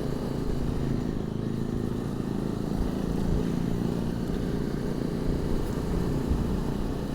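250 cc motorcycle running steadily at road speed with wind rush, heard muffled from a lavalier mic inside the rider's crash helmet.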